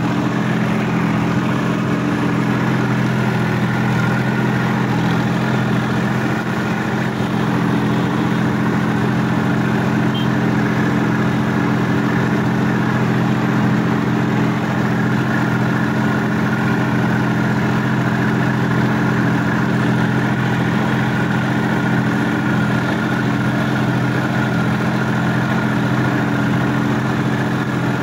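Sonalika DI-50 RX Supreme tractor's diesel engine running steadily as the tractor drives through deep paddy-field mud.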